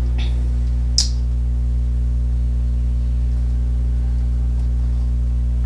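Steady low electrical hum, like mains hum, with one sharp click about a second in.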